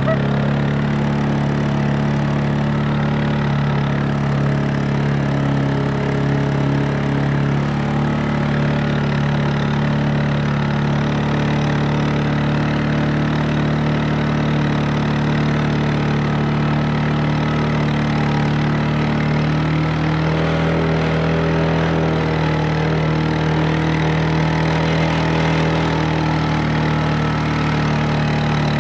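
Off-road vehicle's engine running steadily while driving slowly along, its pitch shifting slightly about twenty seconds in.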